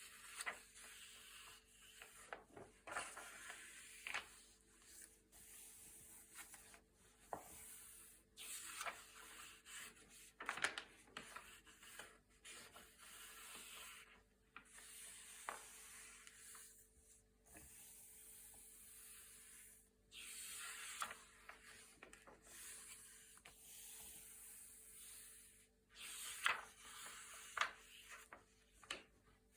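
Thick glossy paper pages being turned one after another: a rustling swish every few seconds, with crisp snaps and crinkles as each stiff page flips over.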